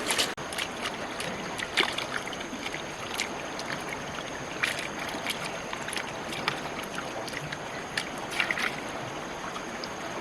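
Water sloshing, with scattered short splashes over a steady outdoor hiss and a faint steady high-pitched tone.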